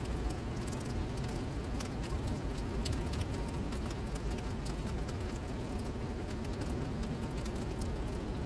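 Steady rain falling into a shallow puddle on paving: a continuous hiss dotted with many small, irregular drop taps and splashes.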